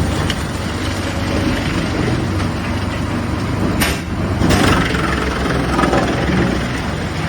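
Mobile wood chipper running with a steady, low drone. A sharp crack comes a little under four seconds in, followed by a brief rougher burst.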